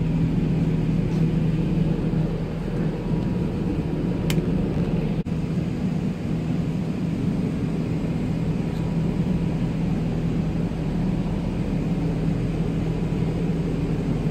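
Steady low rumble of an Airbus A380 airliner's cabin in flight: engine and airflow noise heard inside the cabin. A single sharp click comes about four seconds in, and the sound breaks off for a moment just after five seconds.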